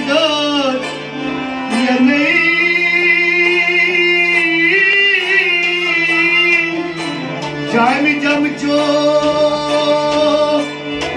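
Live Kashmiri folk music: a man sings with sarangi and rabab accompaniment. Long, gliding, wavering melodic lines run over a steady drone.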